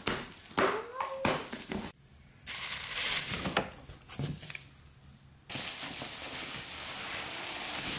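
Cardboard box flaps being pulled open with scrapes and knocks, then plastic wrap around office chair parts rustling and crinkling as hands move them inside the box, in a loud patch a few seconds in and again steadily through the last few seconds.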